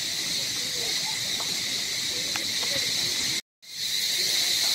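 Steady outdoor drone of many insects, high and continuous, with faint scattered chirps beneath it; the sound cuts out completely for a moment about three and a half seconds in.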